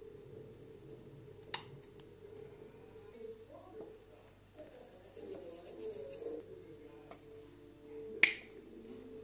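A white ceramic mixing bowl knocks sharply once against the wooden worktop as sticky dough is tipped out of it. This is the loudest sound, coming about a second before the end. A smaller click comes about a second and a half in, over faint background music.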